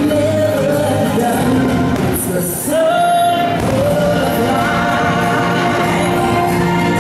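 Fireworks-show soundtrack: music with singing, with long held sung notes.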